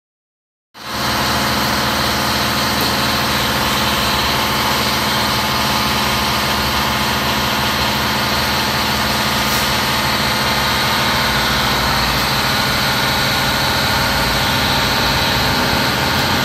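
A machine running steadily and loudly, unchanging in pitch, starting abruptly about a second in.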